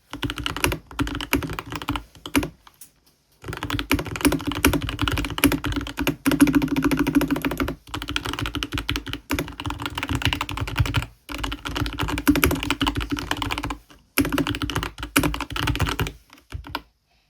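Fast typing on a Keychron K2 HE keyboard with magnetic switches under low-profile Logitech MX Mechanical Mini keycaps: rapid keystrokes in runs of a few seconds with short pauses between, ending in a few scattered key presses.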